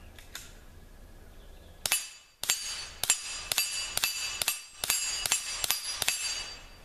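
Rapid string of about ten suppressed .22 LR pistol shots, roughly two a second, from an ISSC M22 with a PTP suppressor firing Gemtech subsonic ammunition; the slide cycles between shots. Each bullet strikes a hanging steel gong, which rings on between shots.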